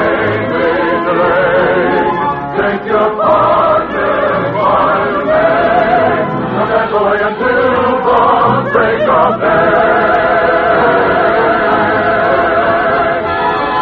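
Choir with orchestra singing an operetta waltz, the voices wavering with vibrato and settling into a long held chord in the last few seconds.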